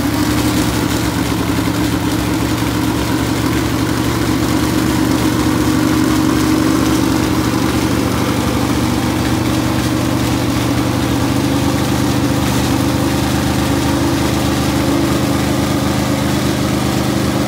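Ford 521-cubic-inch stroker V8, built from a 460 big-block, idling steadily.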